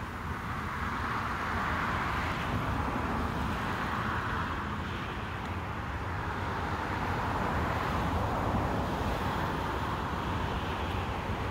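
Steady hiss of distant road traffic that swells and eases every few seconds, with low wind rumble on the microphone.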